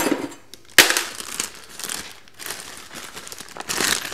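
Clear plastic parts bag crinkling and rustling as it is handled, in irregular bursts with a sudden loud crackle about a second in.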